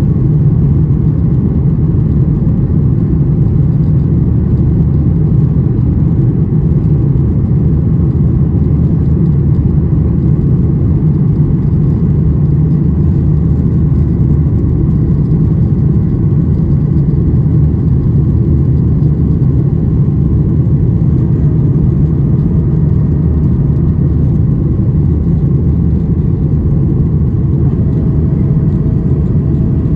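Steady loud cabin rumble of a Boeing 737-800 climbing out after takeoff: its CFM56-7B turbofans and the airflow over the fuselage, heard from a window seat over the wing. A faint steady hum joins near the end.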